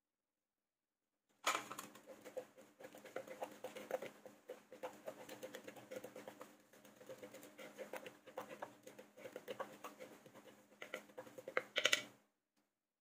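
Metal spoon stirring and scraping a wet chili sauce in a wooden mortar: a busy run of light clicks and scrapes, with sharper knocks of the spoon against the wood about a second and a half in and again near the end.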